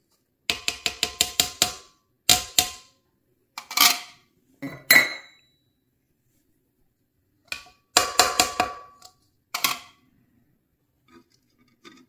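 A metal spoon clinking against glass in quick runs of taps, about six a second, each with a short ringing note, with single taps between. The spoon is being knocked clean of ground turmeric and spice.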